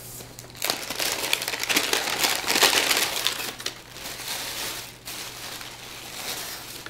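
Brown wrapping paper and then white tissue paper crinkling and rustling as a present is unwrapped by hand. The crackling is loudest for the first few seconds and grows quieter near the end.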